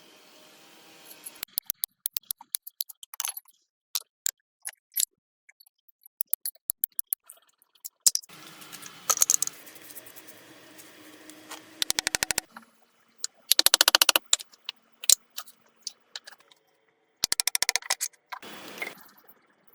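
Scattered sharp clicks and knocks, with a few short bursts of rapid, evenly spaced clicking and brief rattling, separated by silences.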